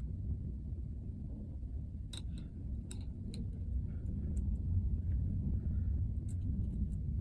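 Small sharp clicks of hand tools and small laptop parts being handled, a cluster of several in the middle and one more near the end, over a steady low rumble.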